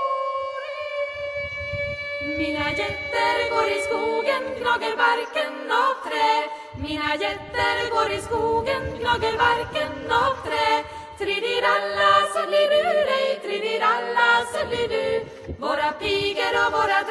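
Background music: a choir singing, with a few long held notes at first and many voices coming in after about two and a half seconds.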